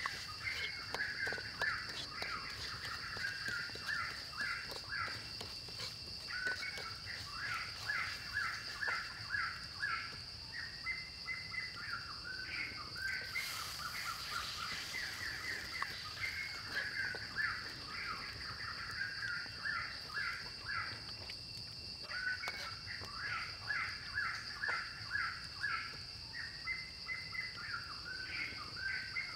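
Birds chirping continuously in quick runs of short repeated notes, over a steady high-pitched insect drone.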